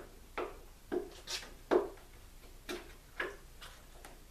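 A hand tool knocking at the metal guard on an old cedar plank canoe as it is worked off: a string of short, sharp knocks, roughly two a second and unevenly spaced.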